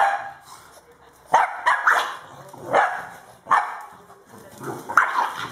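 French bulldog barking in short, sharp barks, about eight of them, a third of a second to a second apart, while it wrestles with a person's hand in rough play.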